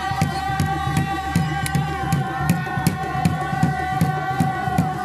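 Kalash dance song: a group of voices chanting held notes over a steady drum beat of about three strokes a second.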